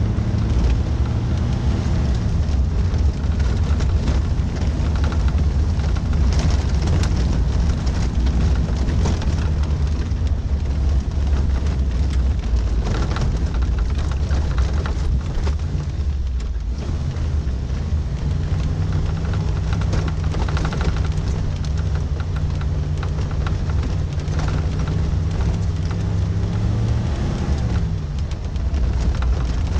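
1988 Suzuki SJ413 Samurai's 1.3-litre four-cylinder engine pulling steadily on a rough dirt track, with frequent knocks and rattles from the body and suspension. The engine note shifts level a couple of times and falls away about two seconds before the end as the revs drop.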